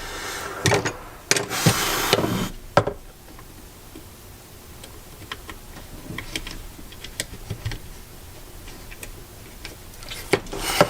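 Lightsaber hilt parts being handled during disassembly: a few scrapes and knocks in the first three seconds, then scattered light ticks and clicks.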